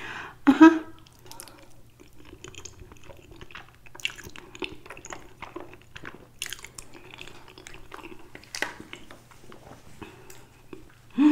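Close-miked chewing of a mouthful of creamy fettuccine alfredo: soft, wet mouth sounds with a few sharper smacks. There is a short vocal sound from the eater just after the start.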